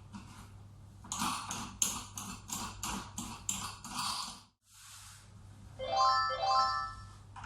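Music: a quick run of scratchy strokes, about three a second, breaks off, then a short melody of bright tones comes in about six seconds in, over a steady low electrical hum.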